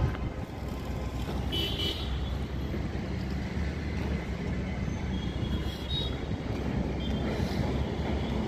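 Street traffic: a steady rumble of passing cars, auto-rickshaws and motorbikes, with brief horn toots, one about two seconds in and a fainter one around six seconds.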